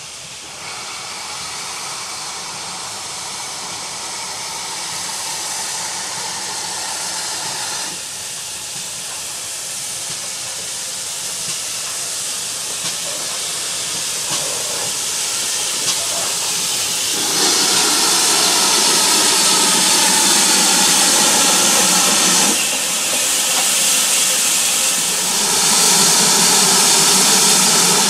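Steam hissing from GWR 9400-class pannier tank locomotive No. 9466 as it moves along the line with its train, getting louder in steps as it draws nearer.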